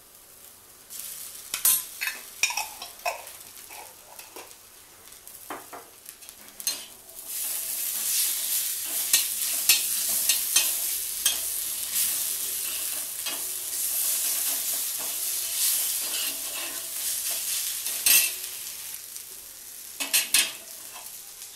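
Shredded vegetables coated in ketchup and Schezwan sauce being stir-fried in a wok: a metal spatula scrapes and knocks against the pan. From about seven seconds in a loud sizzle sets in as the mix is tossed over the heat, easing off near the end.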